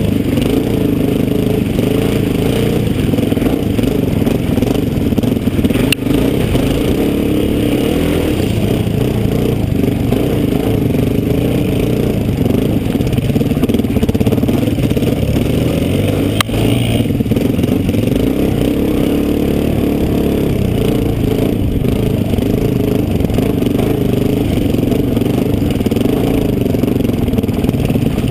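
Dirt bike engines running steadily on a trail ride, the filming rider's own bike closest, with two brief knocks about six and sixteen seconds in.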